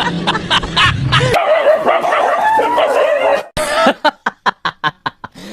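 A dog whining and yipping in short wavering cries. About three and a half seconds in, a fast, even plucked rhythm of background music takes over.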